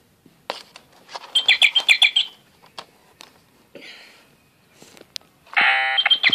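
Electronic sound effects from an Operation board game: a quick run of high chirps about a second and a half in, then the game's buzzer sounding loudly near the end as the tweezers touch the metal edge.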